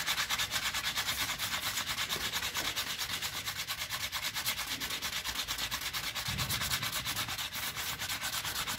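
Hand wet-sanding with 240-grit wet sandpaper on an aluminium alloy wheel rim: quick, even back-and-forth strokes, many a second, scratching steadily on the wet, soapy metal as the curb rash is ground down.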